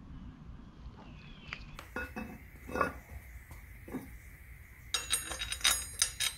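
Metal parts clinking as a new rear sprocket is fitted onto a motorcycle wheel hub and its bolts are handled: a few scattered clicks at first, then a dense run of clinking in the last second and a half.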